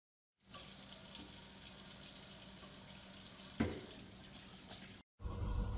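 Water running from a single-lever mixer tap into a bathroom sink, faint and steady, with one short louder moment about three and a half seconds in. It stops abruptly just after five seconds.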